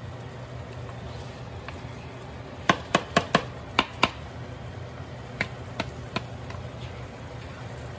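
Washed rice being knocked out of a plastic strainer bowl into a pot of lamb and broth. About a third of the way in come six or so sharp taps in quick succession, then a few lighter ones, over a steady low hum.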